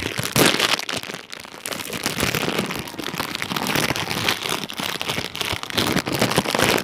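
Clear plastic packaging crinkling and crackling as it is handled close to the microphone, a dense run of small clicks, loudest just after the start and again near the end.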